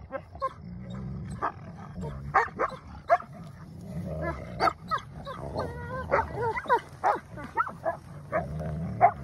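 Two wolfdog puppies growling and snarling at each other, a low steady rumble broken by many sharp yips and whines, as they squabble for possession of a rope toy.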